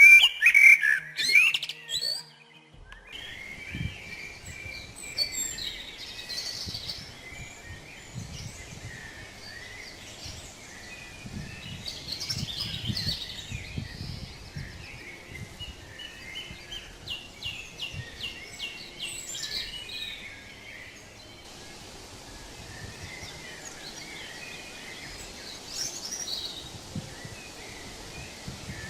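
Forest songbirds singing. A loud, close burst of rapid chirps fills the first two seconds. After that several birds keep up repeated chirps and trills over a steady background hiss.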